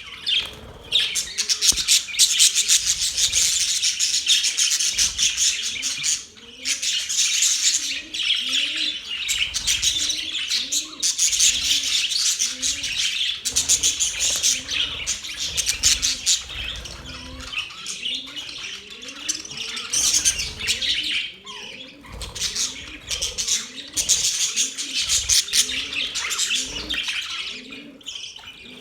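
A flock of budgies chattering and warbling continuously, with short low cooing notes repeating about once a second underneath.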